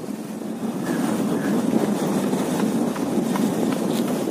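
Motorcycle engine running at a steady pace while riding, heard from the pillion, with road and wind noise over it.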